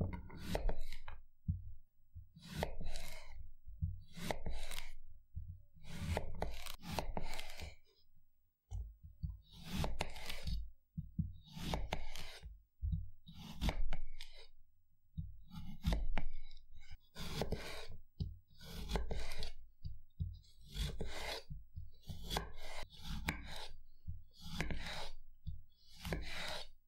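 Kitchen knife slicing cucumbers into thin rounds on a wooden cutting board, a short cutting stroke about once a second.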